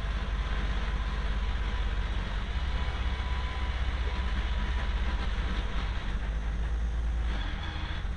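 Citroën Saxo T3F race car heard from inside its cabin at speed: a steady engine drone under heavy road and wind noise. The sound dips briefly about seven seconds in.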